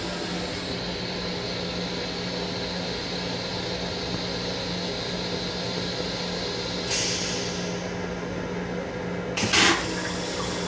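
Flush cycle of a Long Island Rail Road M7 railcar toilet. A steady motor hum starts, water hisses into the bowl about seven seconds in, and a short, loud whoosh comes near the end as the bowl empties.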